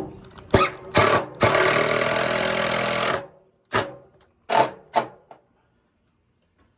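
Power drill driving screws: two short trigger bursts, one steady run of nearly two seconds, then three more short bursts.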